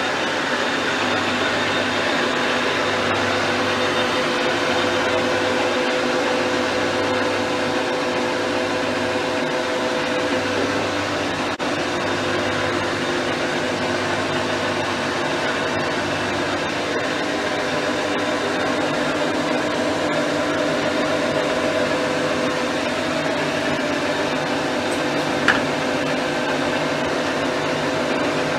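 Dean Smith & Grace 1307 gear-head lathe running under power with its power cross-feed engaged: a steady mechanical hum with several steady tones from the gears. A single sharp click about 25 seconds in.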